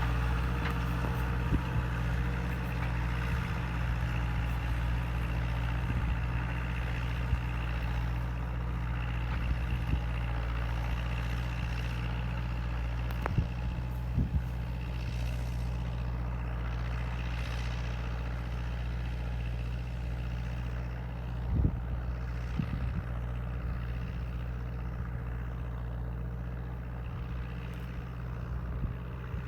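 Massey Ferguson 274S tractor's four-cylinder diesel engine running steadily under load while ploughing. A few sharp knocks and clanks sound about halfway through and again later.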